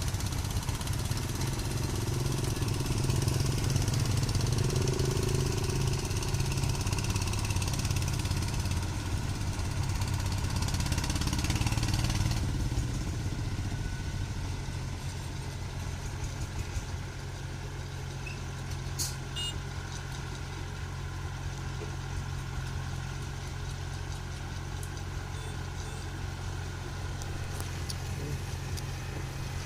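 Farm vehicle's engine running steadily, louder for the first twelve seconds or so, then settling to a quieter, even run.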